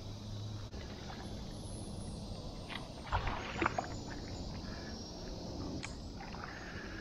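Shallow lake water sloshing and splashing at the edge, with a short flurry of splashes about three seconds in, over a steady outdoor background hiss.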